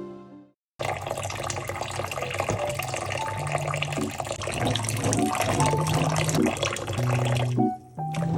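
Water running from a tap into a sink, starting about a second in and stopping shortly before the end, under soft background music.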